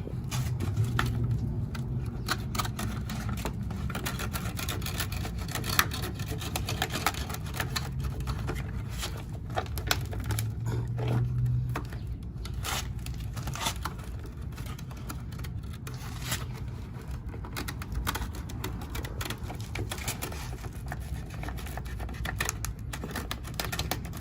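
A knife cutting, scraping and prying at the inside of a subwoofer, making a busy, irregular run of clicks and scrapes. A low steady hum runs underneath.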